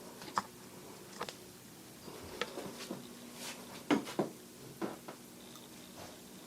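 A steady low electric hum, likely from a fan motor, with about seven light clicks and taps scattered through it.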